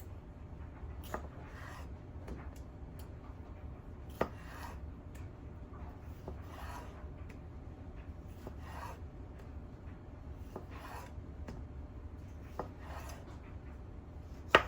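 Kitchen knife slicing food on a cutting board: a short rasping draw about every two seconds, with a few sharp taps of the blade on the board. The loudest tap comes near the end.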